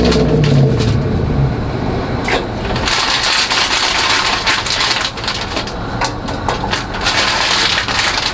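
A plastic bag of frozen broccoli being handled and folded, crinkling with an irregular crackle that gets busier about three seconds in.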